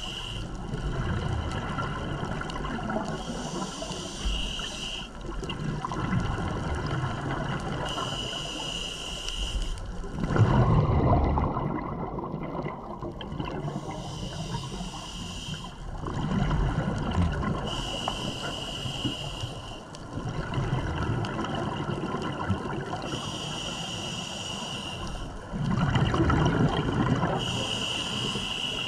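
Scuba diver breathing through a regulator, heard underwater: six hissing inhalations, each a second or two long and about five seconds apart, with rumbling gushes of exhaled bubbles between them, the loudest about ten seconds in.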